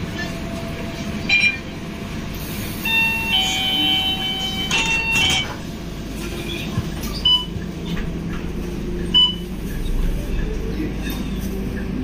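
Bus engine running with a steady low rumble, heard from inside the passenger cabin. A few short electronic beeps sound over it, with a longer run of steady tones a few seconds in.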